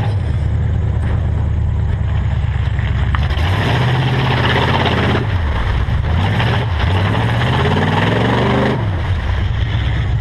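Pickup truck engine revving hard through a mud pit, its pitch climbing and dropping several times as the throttle is worked, with a long rising rev near the end that falls off sharply. Spinning tires churn and throw mud.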